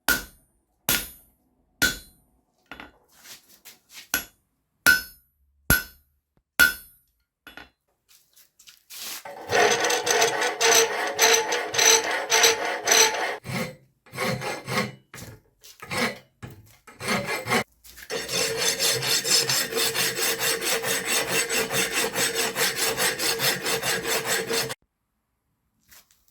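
Hand hammer blows ringing on steel about once a second, fading out, then long runs of rhythmic hand-tool rasping on the C45 steel punch, about four strokes a second, cutting off suddenly near the end.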